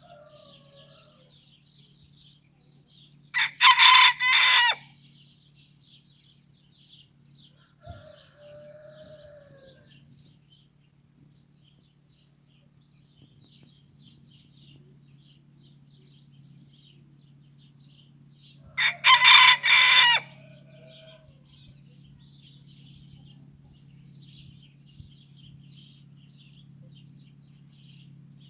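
A rooster crowing twice, about fifteen seconds apart, each crow lasting about a second and a half. Continuous high-pitched chirping and a low steady hum run underneath.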